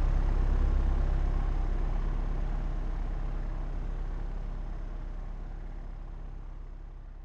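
Propeller aircraft in flight: a steady low drone of engine and propeller, fading out gradually.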